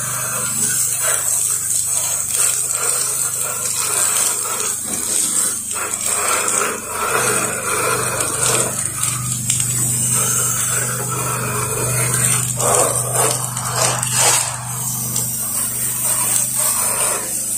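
Pressure washer spraying a tight stream of chlorine wash mix from an X-Jet nozzle up onto a vinyl-sided house's gutter line: a continuous hiss of the jet and its splash against the gutter, over a steady low hum from the machine.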